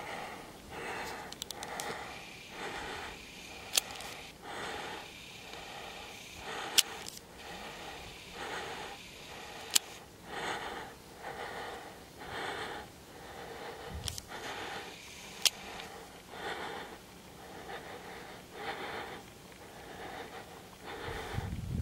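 A person breathing close to the microphone in a steady rhythm, about one breath a second, with four sharp clicks scattered through. A louder low rumble comes in at the very end.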